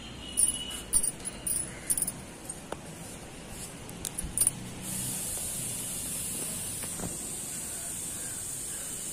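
Rustling and crisp clicks of tomato plants and fruit being handled during picking, in quick irregular bursts for about five seconds. About five seconds in, a steady high hiss sets in and holds.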